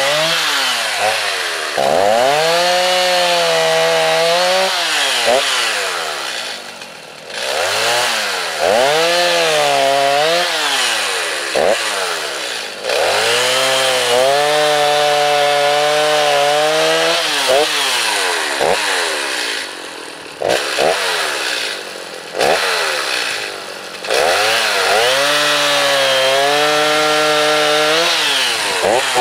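Stihl two-stroke chainsaw bucking a log: the engine is throttled up to full speed and held for a few seconds through each cut, then drops back to idle. This happens about four times, with a few short throttle blips between the third and fourth cuts.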